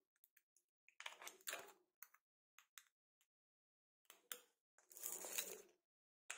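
Plastic ice cube tray being twisted over a glass bowl, crackling in short spurts as the cubes break loose, with scattered light clicks of ice and plastic against the glass.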